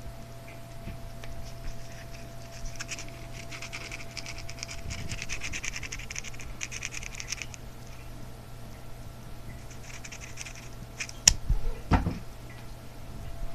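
A cat scrabbling and scratching with its claws during play: a few seconds of rapid scratchy clicking, a shorter patch later, then two sharp knocks near the end. A steady low electrical hum runs underneath.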